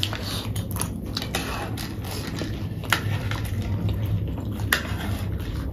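Close-up chewing and crunching of spicy chatpate, a puffed-rice snack, with spoons scraping and clicking on plates; two sharper clicks stand out, about three seconds in and near the end.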